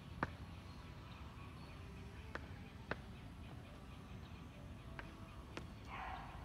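Sneakered footfalls of step-ups on a concrete bench: sharp taps, mostly in pairs about half a second apart, roughly every two and a half seconds, over a steady outdoor background hum.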